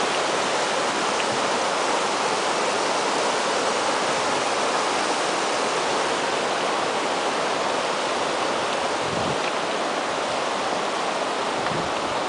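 River water rushing over a low weir of boulders, a steady rushing sound; a few low gusts of wind buffet the microphone near the end.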